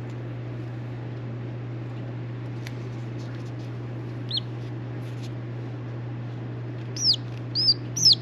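A two-day-old chick peeping: one high, falling peep about four seconds in, then a quick run of three or four louder ones near the end, as it protests being held on its back. A steady low hum lies under it.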